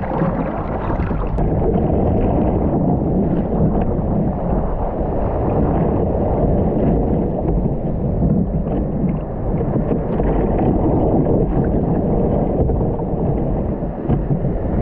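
Dull, steady rush of surf and water sloshing around a plastic kayak, mixed with wind buffeting an action-camera microphone.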